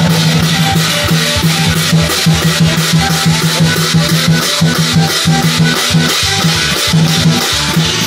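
Live band music driven by a drum kit playing a fast, even beat, with a low note held and repeated under it.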